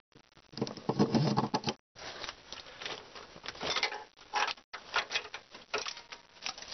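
Irregular rustling and scraping with scattered clicks, as an old transmission shifter cable is pushed down through the floorboard opening and pulled out from under the truck. The sound drops out briefly twice.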